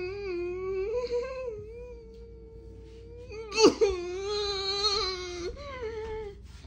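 A long, drawn-out wailing, voice-like cry that wavers in pitch. It starts again louder and sharper about three and a half seconds in.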